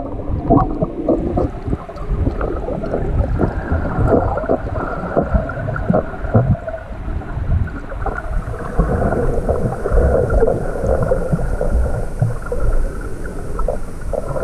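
Muffled gurgling and bubbling water with irregular knocks and pops, as heard underwater.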